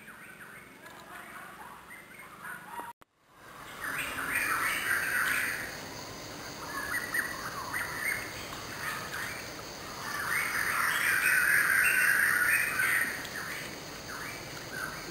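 Birds chattering and calling in a busy, flickering chorus, loudest in two stretches, one at about a third and one at about two thirds of the way through. The sound cuts out briefly about three seconds in.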